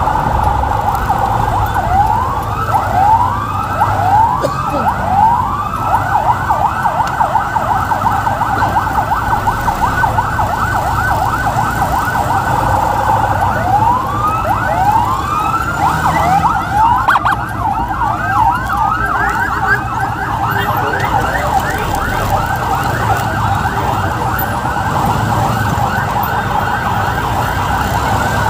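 Several emergency sirens sounding at once, from an ambulance and its motorcycle escort: quick, overlapping rising-and-falling yelps over a steady siren tone. A low rumble of traffic runs underneath.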